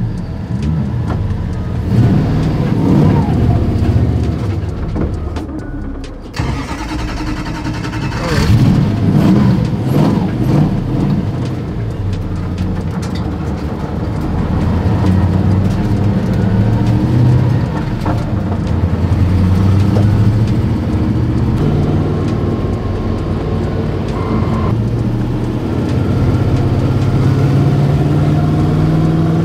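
Supercharged V8 engine of a drift car driven on track, revving up and easing off again and again, then pulling with a steadily rising pitch near the end. It is being driven round gently rather than drifted.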